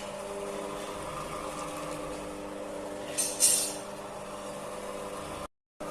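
Mini serundeng cooking machine running: a steady motor hum from its stirrer drive, with two short hissy scraping sounds a little over three seconds in. The sound cuts out briefly near the end.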